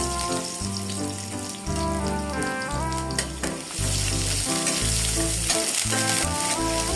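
Food frying, a steady sizzle, over instrumental background music.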